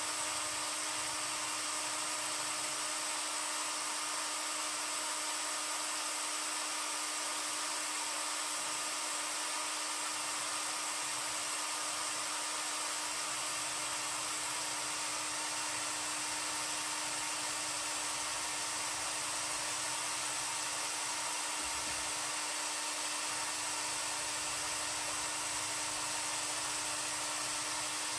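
Mechanical paint mixer motor running steadily while catalyst is slowly stirred into primer. It makes a constant motor whine with hiss that does not change.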